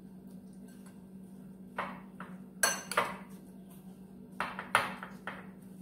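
Glass mixing bowl clinking about six times, sharp and irregular, as oats, nuts and milk are mixed in it by hand. A steady low hum runs underneath.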